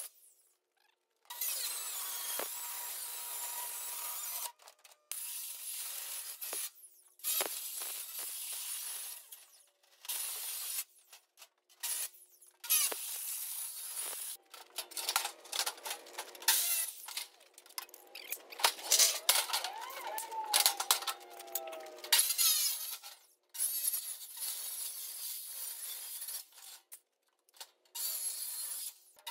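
Circular saw cutting through the aluminium diamond-plate sheet of a truck tool box: a harsh, high-pitched, metallic grinding in a string of bursts broken by abrupt gaps. Around two-thirds of the way through, the saw's pitch falls once.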